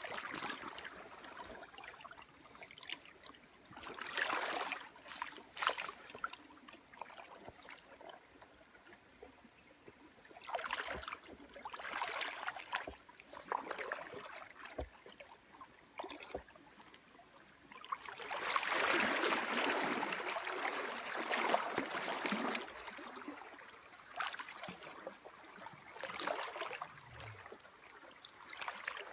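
Water in a stream trickling, with repeated irregular bouts of splashing and sloshing, the longest about two-thirds of the way through.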